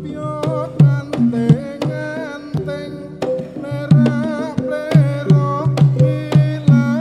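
Live Javanese gamelan accompanying a jathilan dance: kendang hand-drum strokes lead the rhythm under the gamelan, with a wavering melody line above.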